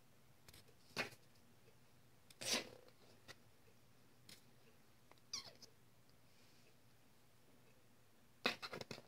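Faint scuffling and scratching as a baby raccoon and a kitten wrestle on cloth: a few short, separate rustles, a brief falling squeak about five seconds in, and a quick cluster of scuffles near the end.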